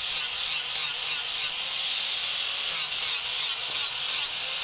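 Handheld angle grinder with an abrasive disc grinding a steel knife blank: a steady, high grinding hiss.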